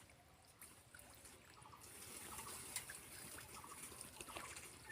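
Faint trickling, dribbling water, with a few small faint ticks.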